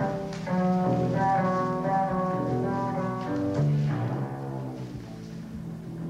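Live instrumental music: a bowed double bass plays a line of sustained notes over a steady low drone, the notes dying away after about four seconds.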